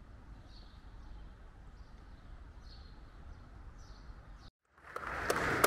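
Faint outdoor ambience with four soft, high bird chirps about a second apart. Near the end, after a brief cut to silence, louder noise with a couple of sharp clicks comes in.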